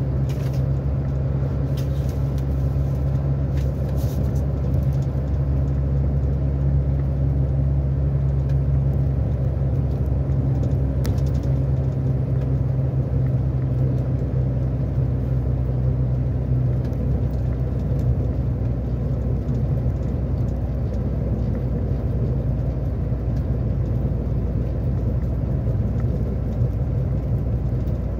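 Truck's diesel engine droning steadily from inside the cab while cruising on the highway, mixed with road and tyre noise.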